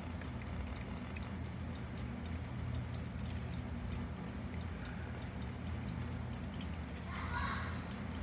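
Steady low background hum with faint, scattered small clicks, and a brief higher-pitched sound near the end.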